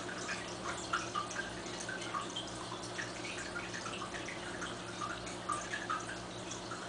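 Aquarium water bubbling and trickling, a steady patter of small drip-like plinks over a constant low hum.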